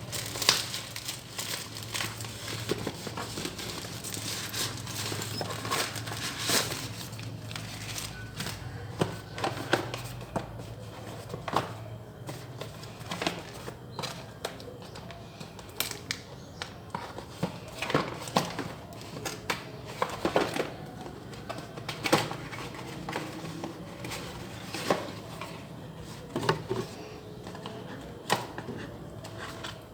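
Handling and unpacking a set-top box: packaging crinkling and rustling, with scattered sharp clicks and knocks throughout over a low steady hum.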